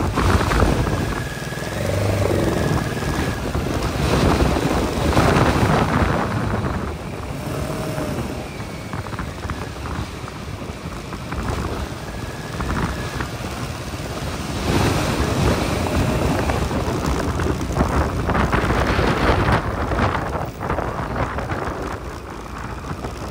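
Wind rushing over the microphone of a motorcycle riding along a wet road, with the bike's running and road noise under it, swelling and easing in several waves.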